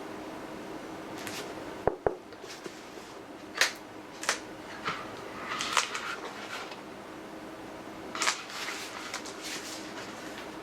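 Pages of a large hardcover book being handled and turned, with short papery rustles every second or two and two sharp taps about two seconds in, over a steady low hum.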